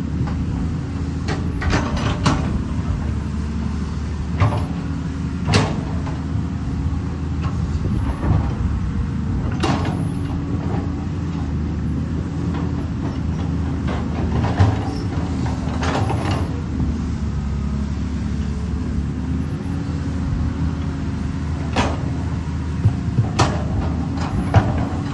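Caterpillar 320D excavator working: its diesel engine runs steadily, with scattered sharp clanks and knocks every few seconds.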